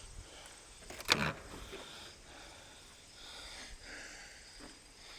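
A single short, sharp clack about a second in, over faint shuffling and movement.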